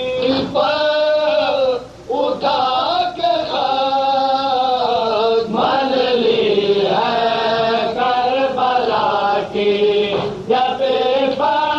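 Male voices chanting a noha, a Shia lament sung without instruments. The long sung lines slide in pitch, with short breaks between them.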